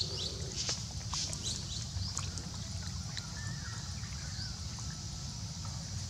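Outdoor ambience: a steady high insect drone with short bird chirps in the first two seconds or so, over a constant low rumble.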